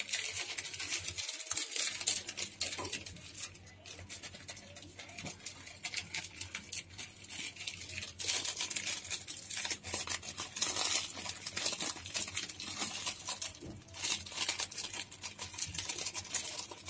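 Potato-and-egg batter topped with minced meat sizzling in oil in a frying pan on a lit stove: a steady crackling sizzle full of tiny pops.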